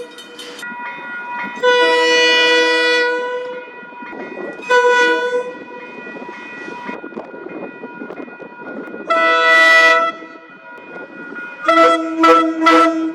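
Train air horn sounding a chord of several notes in repeated blasts: a long blast about two seconds in, a short one near five seconds, another about nine seconds in, then a quick run of short toots near the end. The passing train's running noise fills the gaps.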